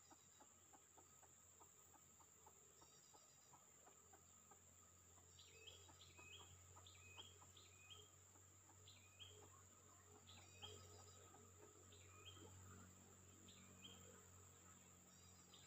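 Quiet forest ambience: a steady high insect drone, faint clucking of red junglefowl, and from about five seconds in a run of short, high chirps coming once or twice a second.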